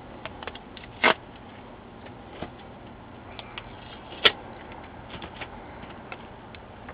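Handling noise from a replacement laptop LCD panel being turned over in the hands: scattered soft ticks and taps, with two louder clicks, one about a second in and one just past four seconds.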